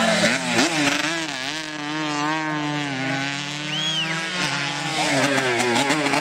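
Racing 135cc motorcycle engines running hard through a corner, more than one at once, their pitch rising and falling as the riders roll off and open the throttle.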